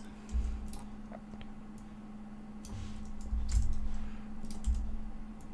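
A few scattered clicks of a computer mouse as lines are selected and dragged, with low rumbling bumps in between and a faint steady hum.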